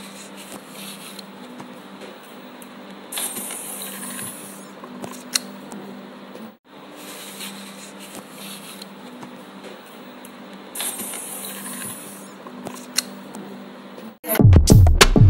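Plastic bag rustling and crinkling as it is handled, over a steady low hum. Electronic music with a strong beat cuts in about a second before the end.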